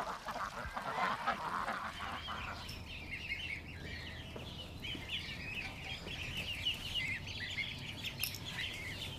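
Goslings and ducklings cheeping in a brooder pen: many short, rapid, high peeps overlapping from about three seconds in. The first couple of seconds hold a rougher, noisier sound.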